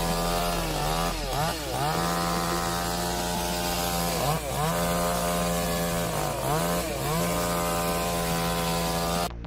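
Chainsaw engine running at high revs, its pitch dipping briefly and climbing back three times. It cuts off abruptly near the end.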